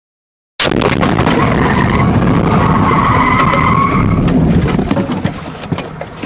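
Car crash starting abruptly and loud: tyres skidding with a squeal in the middle. The noise dies down after about five seconds into scattered clicks and rattles.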